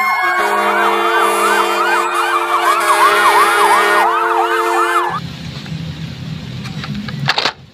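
Toy fire truck's electronic siren: a fast wailing sweep, about three rises a second, over steady electronic tones, cutting off about five seconds in. After it, a low rattle and a few sharp clicks.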